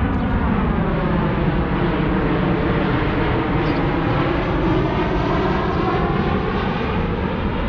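Twin-engine jet airliner passing low overhead as it comes in to land at LaGuardia. Its engines give a steady loud rumble, with a whooshing tone that sweeps down and then back up as it goes over.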